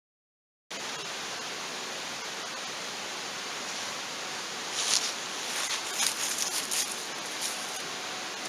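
Campfire burning: a steady rushing hiss, with a cluster of sharp crackles and pops from the burning wood past the middle. The sound starts abruptly after a brief silence.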